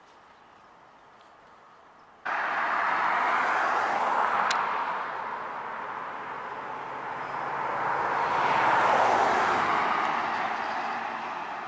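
Road traffic: a vehicle's tyre and engine noise that starts abruptly about two seconds in, swells, eases off and swells again near the end as cars pass by.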